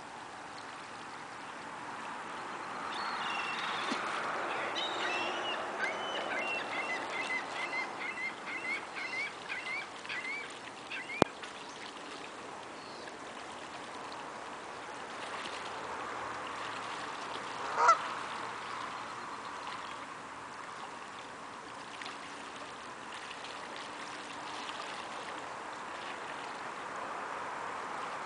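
Canada geese calling in a quick run of repeated notes for several seconds in the first half, over the splashing of water as the flock bathes. A single sharp click sounds about eleven seconds in, and one short, louder sound comes near eighteen seconds.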